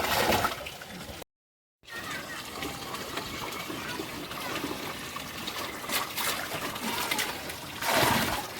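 Water trickling and splashing, louder briefly at the start and again near the end, with a sudden half-second dropout about a second in.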